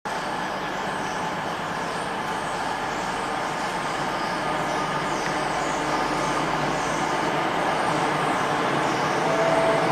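A pair of Class 325 electric mail units approaching through a covered station: a steady rush of wheels and running gear that grows slowly louder as the train nears, with a short high tone near the end.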